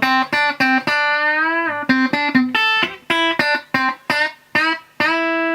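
Electric guitar played through a Yamaha compressor pedal: short choppy chords and single notes, a note bent up about a second in, then a long note held with even sustain near the end. The compressed tone is a bit harsh, bit cold.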